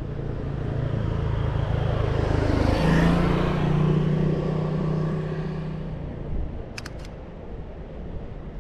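A motor vehicle passing close by on the road: its engine grows louder and rises in pitch to a peak about three seconds in, then fades away. A couple of sharp clicks follow near the end.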